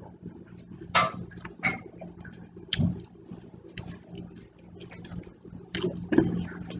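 A person chewing a mouthful of food: a string of short, irregular mouth and lip-smacking sounds, over a faint steady hum.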